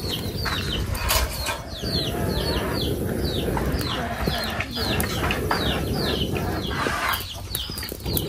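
Birds chirping: a steady run of short, high, falling peeps, about three a second, over a low rough background noise with occasional clicks.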